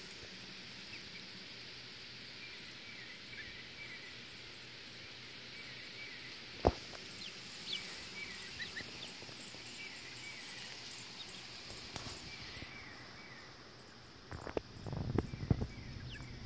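Quiet outdoor evening ambience: a steady high insect drone with soft, repeated short chirps. There is one sharp click a little past a third of the way in, and a patch of rustling and bumps near the end.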